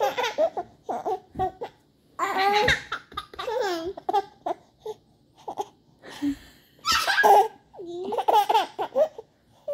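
A baby and a toddler laughing in several bouts, separated by short pauses.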